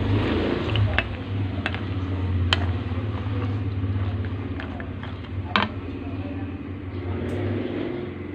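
Peanuts deep-frying in oil in a steel pot, bubbling and sizzling steadily as a wooden spatula stirs them, with a few sharp knocks of the spatula against the pot. A steady low hum runs underneath.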